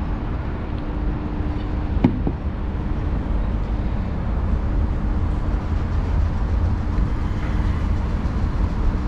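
Steady low background rumble with a constant low hum, and a single sharp click about two seconds in.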